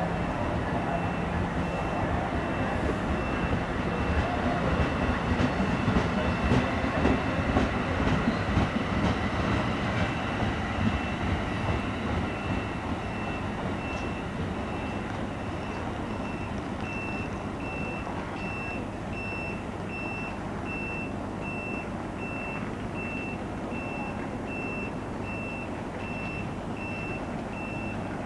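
Bi-level NJ Transit commuter train pulling out of the station, its wheels rumbling and clicking over the rail joints as the last cars go by. It is loudest in the first half, then fades to a low rumble as the cab car moves off. A high electronic beep repeats steadily throughout.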